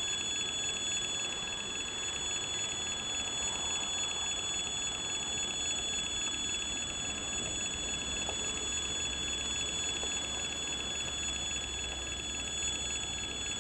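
Level-crossing warning signal sounding continuously: a steady high-pitched alarm tone warning road traffic to stop for a train.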